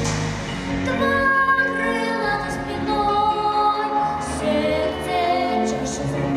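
A child singing a melody over an instrumental backing track, holding long notes with vibrato.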